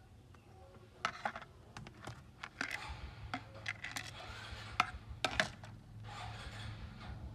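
Irregular clicks and light taps of small hard parts and tools being handled, several of them sharp, with a low steady hum coming in about halfway.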